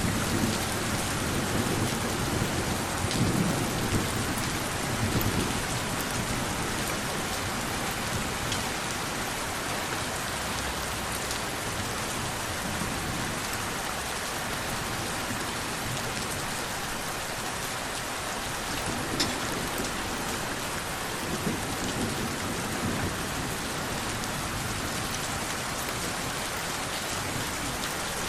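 Steady rain hissing on surfaces, with a few sharp drips. Low rolls of distant thunder rumble under it in the first few seconds and again about twenty seconds in.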